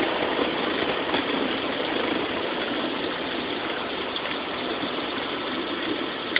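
Small propeller airplane's engine running steadily, heard inside the cabin as an even drone.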